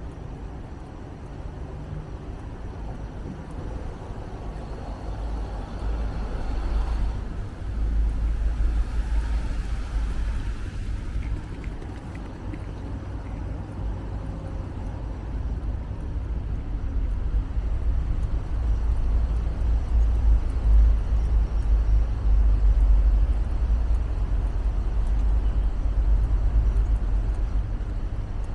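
Low rumble of city background noise, the kind of sound road traffic makes. It gets louder about a third of the way in and again in the second half.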